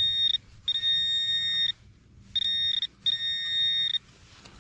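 Handheld metal-detecting pinpointer probing a dig hole, sounding a high steady tone in four bursts of half a second to a second as it finds a large buried piece of iron.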